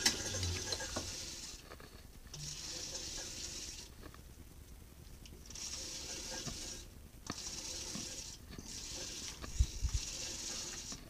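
A file rasping against the rim of a cast hand wheel spinning in a metal lathe: a hissing scrape in strokes of one to two seconds, about five times with short breaks between, over the lathe's low running sound.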